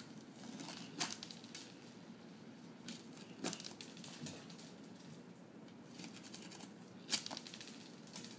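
Dry cat food pellets clicking and skittering across a ceramic tile floor, three sharp clicks with light pattering between them, while a cat scampers after them.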